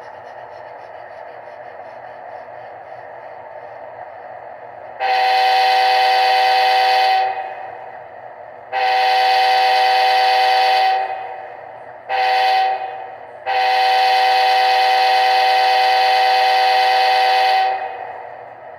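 HO-scale Athearn Genesis P42 model locomotive's sound decoder blowing its diesel horn in the grade-crossing pattern: two long blasts, a short one, then a long one. Under the horn runs the steady, quieter sound of the locomotive's engine.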